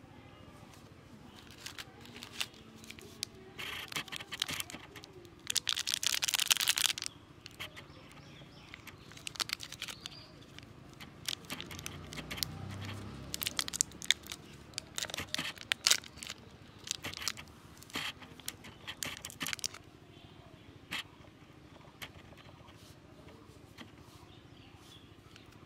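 Plastic candy wrapper crinkling and tearing as a wrapped sweet is pulled open by hand, a run of sharp crackles with the loudest tearing about six seconds in.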